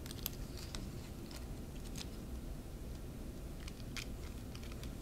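Paper and repair tape handled by fingers: scattered short crackles and ticks as the tape is worked onto a torn book page and pressed down, over a steady low hum.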